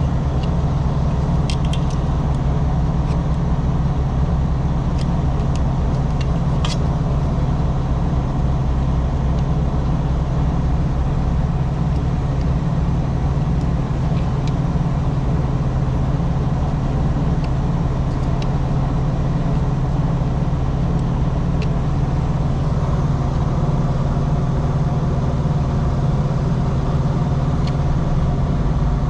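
Steady low hum of an idling engine, with a few faint light clicks in the first several seconds.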